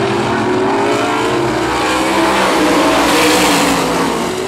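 Several supermodified race cars' V8 engines running hard around an oval track, their pitches rising and falling as they go through the turns and pass. Loudest about three seconds in as cars go by close.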